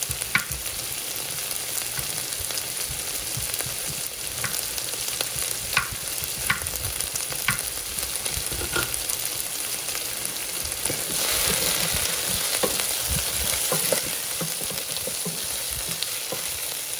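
Onions and carrots sizzling as they sauté in a pot, a steady hiss with scattered light clicks and knocks. The sizzle grows louder for a few seconds about two-thirds through.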